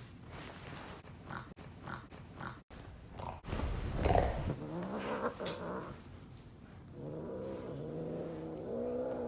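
Maine Coon cat giving long, low, drawn-out yowls in protest at being held. There is a bump about four seconds in.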